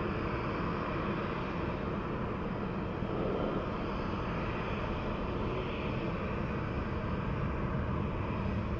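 Steady jet airliner engine noise, even and unchanging throughout.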